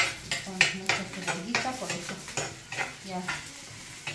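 A spoon stirring and scraping food frying in oil in a clay cazuela, with a steady sizzle under the strokes. The strokes come about two or three times a second.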